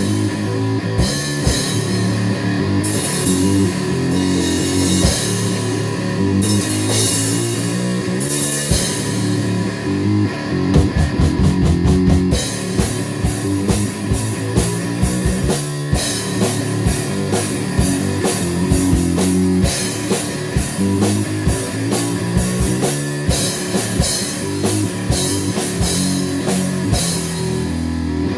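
Heavy rock music: a band with a drum kit and electric guitar playing a steady beat, with a rapid drum fill about ten to twelve seconds in.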